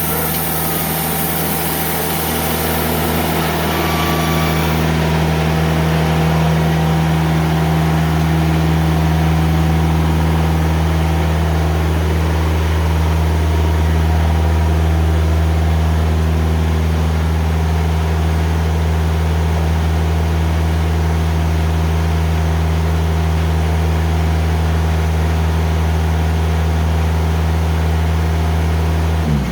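Diesel engine of a TimberKing 2000 sawmill running at a steady speed, with a high hiss over it for the first few seconds.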